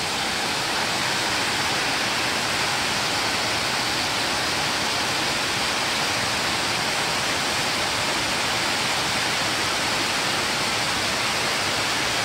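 Waterfall cascading down a tall stepped rock face, giving a steady, even rush of falling water.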